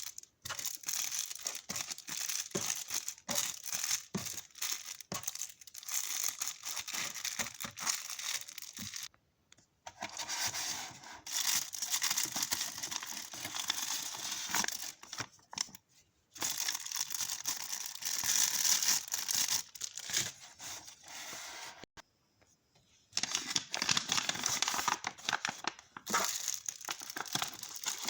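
Plastic packaging crinkling and tearing as it is handled during packing, in dense, scratchy stretches that stop briefly three times.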